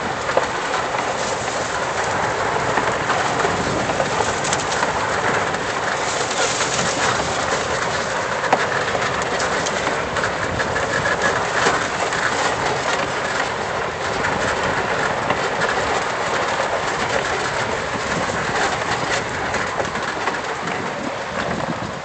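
Lifted E-Z-GO golf cart driving along a dirt and gravel trail: a steady crunching rumble of tyres on gravel and the cart rattling over the ground, with a few sharp clicks.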